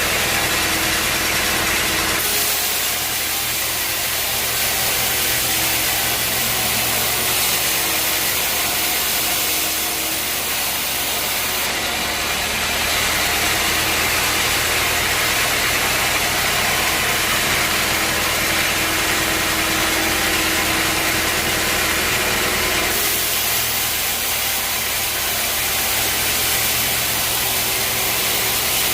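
Sawmill machinery running steadily: a low engine hum under a loud hiss, the hiss changing in tone about two seconds in and again around twelve and twenty-three seconds.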